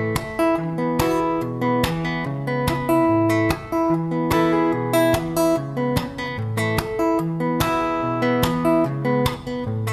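Solo acoustic guitar strummed and picked in an instrumental break of a song, with a steady run of chord strokes and no voice.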